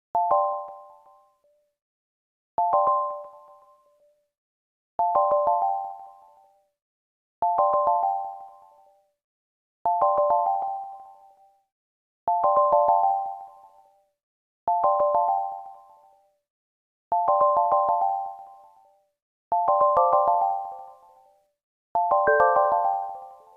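A short chiming phrase of bell-like electronic notes, repeated about every two and a half seconds. Each phrase starts sharply and fades out, and the phrases grow fuller near the end, with higher and lower notes added.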